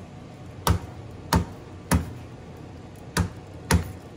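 Meat-tenderizer mallet striking peeled garlic cloves on a plastic cutting board to crush them. There are five strikes: three in quick succession, about two-thirds of a second apart, then a short pause and two more.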